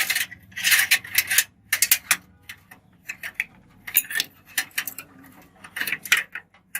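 Computer power-supply cables and plastic connectors being handled, with irregular clicks and light rattling.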